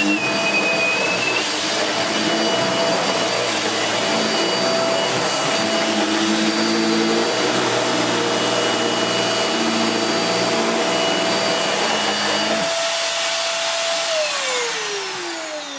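Vax Mach Air upright bagless vacuum cleaner running steadily with a constant motor whine. Near the end it is switched off: a lower hum drops out, then the motor whine falls in pitch as it spins down.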